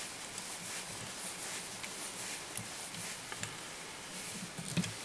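Faint rustling and small ticks of pink tinsel and thread being handled and wrapped onto a tube fly body at the vise, over a steady hiss, with a sharper tick near the end.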